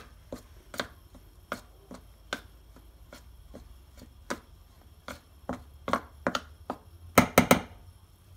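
Metal spoon stirring dry flour in a stainless steel bowl, clinking against the bowl's side about every half second, with a quick run of louder knocks near the end.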